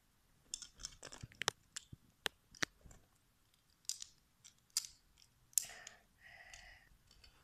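Plastic Lego pieces clicking and snapping together as they are pressed onto a small Lightning McQueen car. Several sharp light clicks come at irregular intervals in the first three seconds, followed by a few scraping, rustling handling noises.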